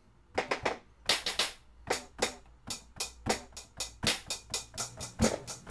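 Software drum-kit sounds triggered by fingers tapping the pads of a homemade cardboard MIDI drum controller: a quick, irregular run of drum hits starting a moment in. The pads are velocity sensitive, so the hits vary in strength.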